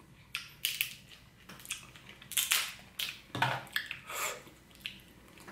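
King crab leg shell cracking and crunching as it is broken apart by hand, in a string of irregular short cracks.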